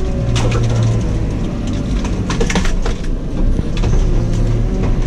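JCB telehandler's diesel engine working hard with its hydraulics under load, a steady low drone with a faint whine, as it pushes a heavy fallen tree. Several sharp cracks and knocks of wood and branches come through, about half a second in and again between two and three seconds in.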